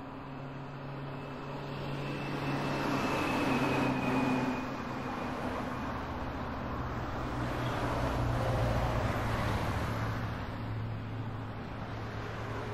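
Car driving at road speed, heard from inside the cabin through a dashcam: a steady low engine hum under tyre and road noise that swells about two seconds in and again around eight seconds.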